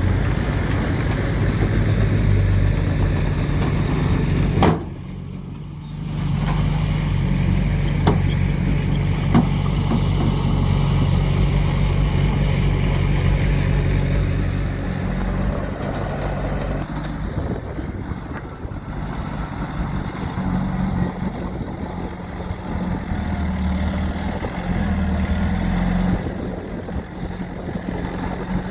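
Diesel engine of earthmoving machinery running steadily, with its level changing over time. It briefly drops away about five seconds in, and there are a couple of sharp knocks a few seconds later.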